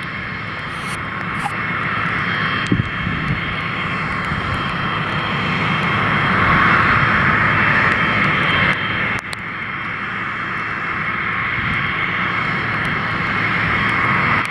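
Pilatus PC-24 business jet's twin Williams FJ44 turbofans running, a steady whine over a low rumble. It grows louder to about eight seconds in, then drops sharply about a second later.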